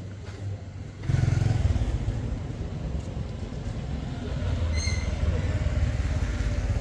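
An engine running, coming on suddenly and loudly about a second in and then running steadily with a low, dense sound.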